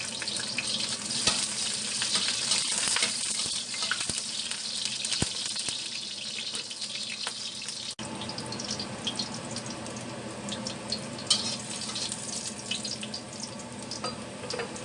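Garlic sizzling in hot oil in a wok while being sautéed until fragrant: a steady hiss with scattered crackles and a few taps. The sound drops out briefly about eight seconds in and resumes slightly changed.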